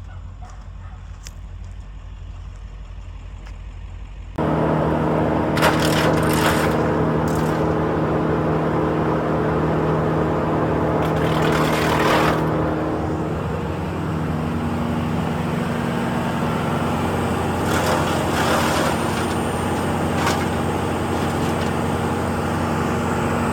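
Vermeer BC1800XL wood chipper's engine running: a low idle for about four seconds, then abruptly much louder at higher speed with a steady note and a few louder rushing swells, the pitch dropping slightly about halfway through.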